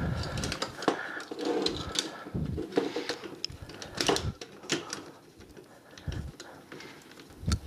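Hard plastic parts of a Transformers Weaponizer Bumblebee figure clicking, knocking and rubbing at an irregular pace as hands try to peg its two back halves together. The tabs are hard to seat.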